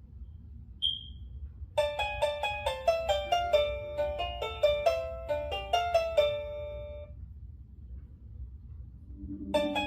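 One short high beep, then a wireless doorbell chime plays a quick melody of bright, piano-like notes for about five seconds. The melody starts again near the end.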